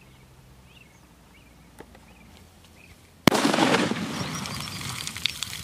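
A large 'VIP' firecracker, set off by a remote-control igniter, explodes with one sharp bang about three seconds in. A rush of crackling, spattering noise follows and fades away over about two seconds. Small birds chirp faintly before the bang.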